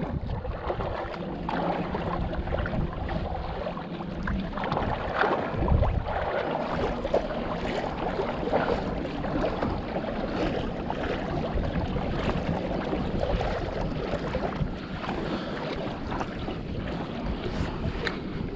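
Wind buffeting the microphone and choppy water slapping against a kayak's hull, with a low thump about six seconds in.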